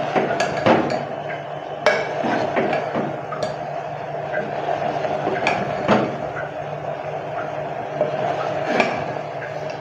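Steel ladle stirring a thick bean and spice mixture in an aluminium pressure cooker, scraping and knocking against the pot's sides and rim in irregular clinks. A steady low hum runs underneath.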